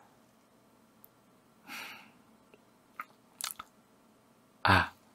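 A man's soft breath close to the microphone, then a few quick wet mouth clicks and lip smacks, and a short voiced sound from him near the end.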